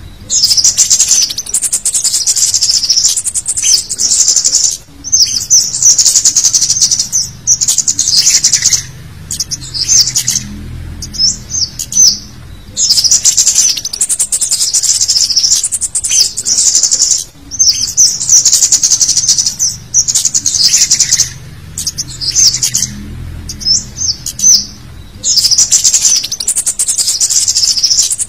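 Scarlet-headed flowerpecker (cit kemade) calls: rapid, high-pitched, sharp chittering in bursts of a second or two with short breaks, repeated over and over. It is a busy lure call used to draw in wild flowerpeckers.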